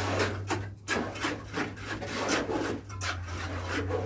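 Irregular scraping and rubbing strokes, about two or three a second, from hand work on the construction scaffolding, over a steady low hum.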